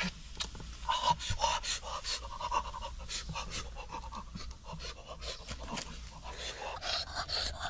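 A man's short, noisy breaths and puffs, irregular at about two or three a second, as he handles the skewered meat.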